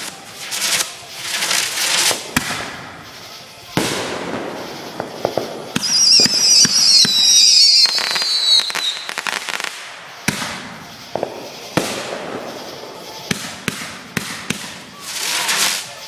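Consumer aerial fireworks going off: a string of sharp bangs and crackling bursts with hissing between them, and a loud high whistle falling slowly in pitch from about six to nine seconds in.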